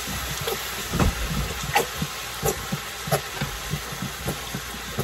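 Plastic squeeze bottle of sauce being shaken and squeezed upside down over a pan, making a run of soft, irregular thumps and squirts, about three a second.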